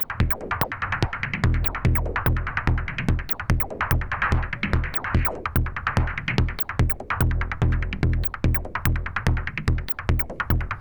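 Make Noise Shared System Eurorack modular synth playing a synthesized techno percussion loop: a steady four-on-the-floor kick under a fast sixteenth-note pattern of sharp ticks, with swells of noisy hiss rising and falling.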